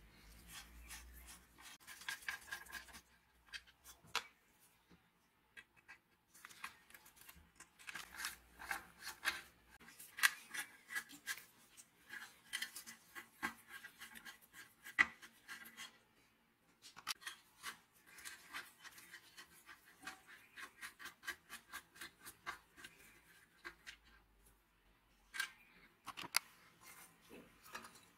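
A screwdriver scraping and clicking against the small metal terminal screws of an old heater's switch block, in irregular runs of short scratches and ticks with brief pauses.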